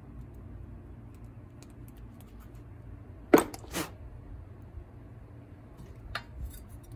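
Two sharp clacks about half a second apart, hand tools being handled and set down on a wooden workbench, then a lighter click near the end. A faint steady low hum lies underneath.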